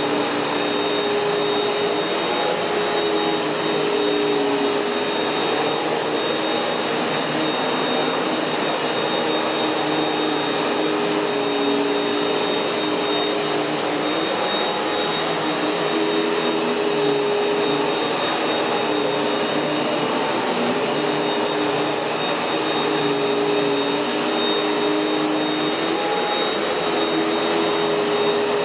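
Panasonic MC-UG471 bagged upright vacuum cleaner running: a steady rush of air with a constant high whine, and a lower hum that wavers in pitch every few seconds.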